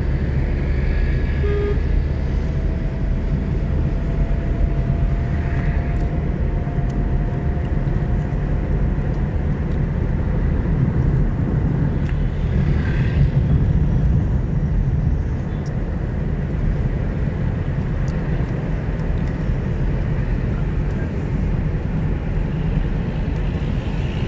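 Steady road and engine rumble heard from inside a car's cabin while it drives at speed on a highway.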